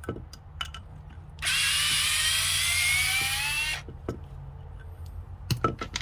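Small cordless electric screwdriver's motor running for about two and a half seconds, starting about one and a half seconds in, as a whine that rises steadily in pitch. A few light clicks come before it and a quick run of clicks near the end.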